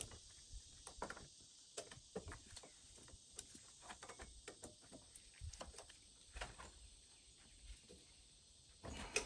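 Faint, irregular clicks and taps of gloved hands on the Bobcat S250's hydraulic lift cylinder as a threaded part of it is turned in by hand, with a short louder run of clicks near the end.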